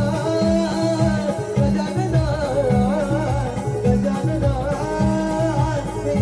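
A devotional Marathi shahiri song, a prayer to Ganesh: a singer holds long wavering notes over a steady instrumental accompaniment.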